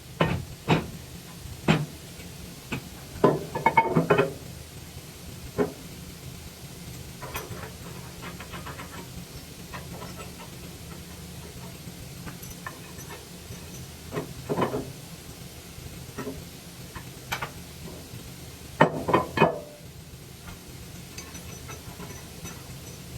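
Metal parts and hand tools clanking and knocking as pieces are refitted on a wood chipper, in scattered single knocks and short clusters, over a steady low hum.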